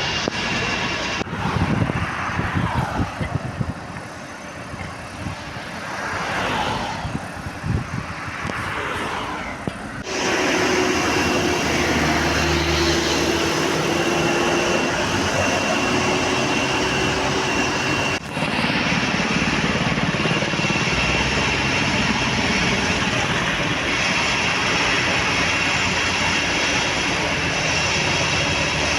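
Outdoor field sound of steady rushing noise with a vehicle engine's drone, changing abruptly a few times.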